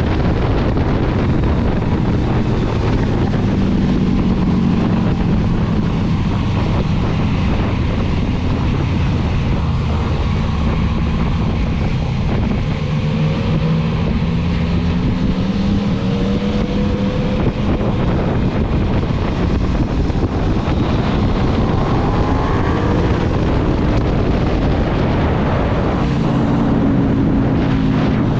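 Motorcycle engine running under way, its note rising and falling with the throttle, under heavy wind rush on the microphone.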